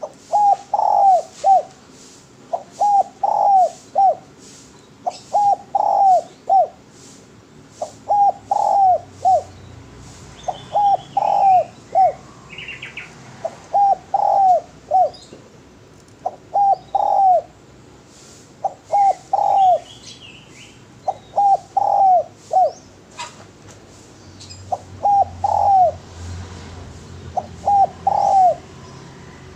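Spotted dove (derkuku) cooing in short three-note phrases, repeated about every two and a half seconds, with faint chirping of other birds twice between them.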